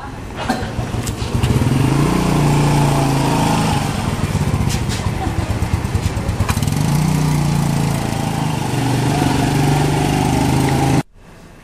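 Motorcycle engine running and revving, its pitch rising and falling twice, then cutting off suddenly near the end.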